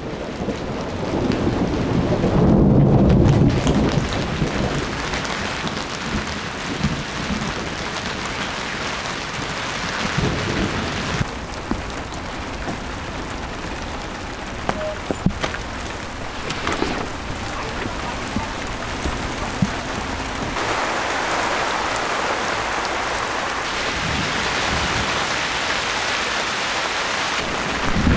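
A loud thunderclap rolls for a few seconds about two seconds in, after a lightning flash, over heavy rain falling steadily.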